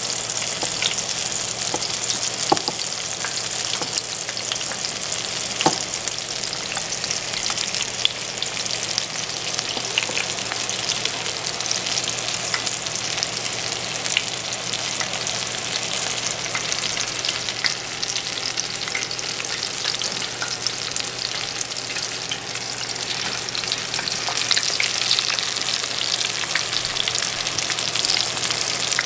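Flour-coated quail frying breast side down in hot grease in a cast iron chicken fryer: a steady crackling sizzle, with now and then a sharper pop.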